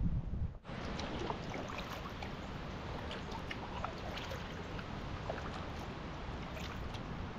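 Steady rain falling on creek water: an even hiss dotted with many small drop ticks. It is preceded by a short low rumble that cuts off abruptly about half a second in.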